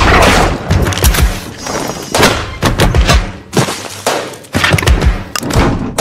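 A string of heavy thuds and crashes from film sound effects, about a dozen separate impacts at uneven intervals, each dying away quickly. A deep bass note sounds at the start.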